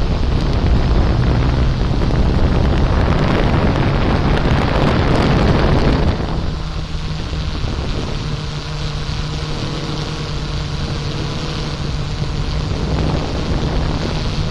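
Quadcopter drone's propellers humming steadily, with a heavy rush of wind on the microphone that eases off about six seconds in.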